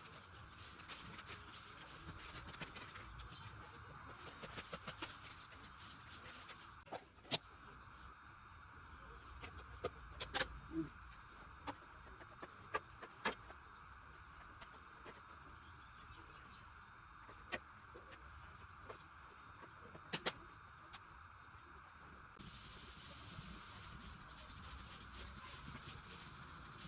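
Insects chirring steadily in a fast, even pulse, with scattered sharp clicks and knocks.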